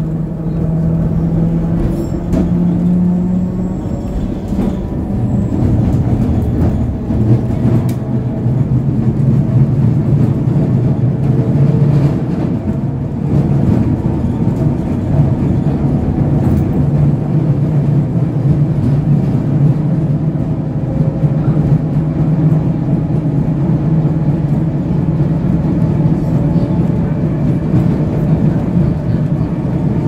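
Gotha T57 tram running along its track, heard from inside the car: a steady rumble with a low motor hum and occasional clicks of the wheels on the rails.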